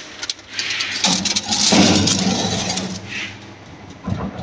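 Foil-covered baking dish being slid in over the wire rack of a countertop toaster oven: a rumbling scrape, fading, then a short knock near the end.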